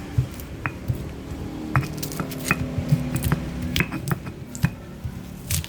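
Irregular sharp clicks and knocks of kitchen utensils against a bowl while freshly ground spice paste is worked.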